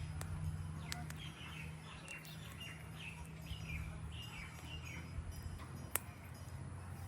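Birds chirping: a quick run of short, falling chirps, with a few sharp clicks over a steady low hum.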